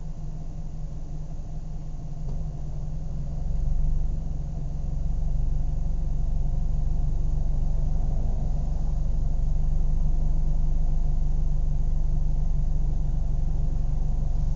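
Car engine idling with a steady low rumble; about four seconds in it swells briefly, then runs on steadily a little louder.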